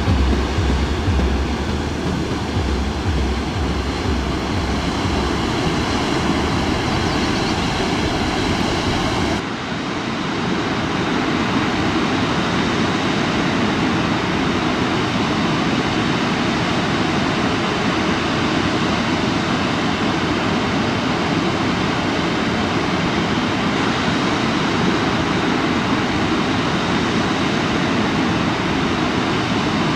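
Steady roar of the Litlverivassforsen waterfall falling down a steep rock face. Over the first nine seconds or so a low rumble runs under it and stops at a cut, where the roar carries on alone.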